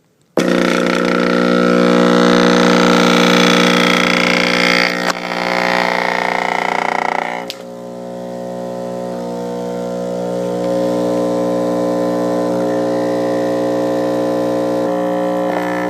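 Alpine Type-R 12-inch subwoofer with a torn spider, wired straight to a household wall socket, blaring a loud, harsh mains hum with a rattling buzz as the raw AC overdrives it and burns it out. About seven seconds in the harsh buzz drops away to a steadier hum.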